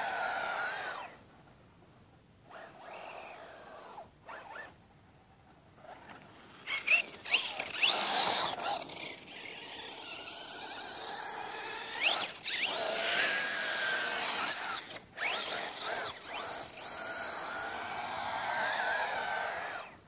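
Axial EXO electric RC buggy's motor whining under throttle as it climbs a sand slope, in several bursts of a few seconds that rise and fall in pitch, each cutting off abruptly.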